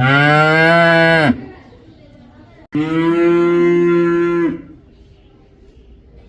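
A cow mooing twice: the first moo rises in pitch, holds, and ends about a second in; the second moo starts abruptly near the middle and holds a steady pitch for nearly two seconds.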